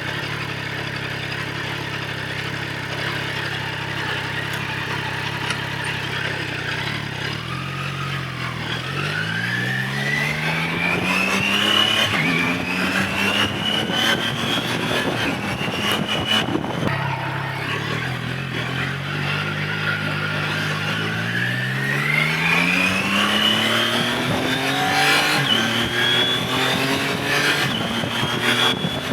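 Motorcycle engine running steadily. About a third of the way in it accelerates with a rising pitch, shifting up through the gears. It eases off near the middle, then accelerates through the gears again toward the end.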